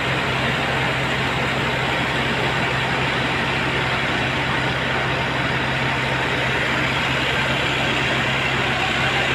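Heavy engine-driven machinery running steadily: a constant low hum under an even rush of mechanical noise, with no change in speed.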